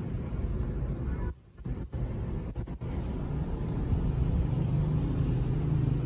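Steady low background rumble, dropping out abruptly a little over a second in and again briefly a second or so later.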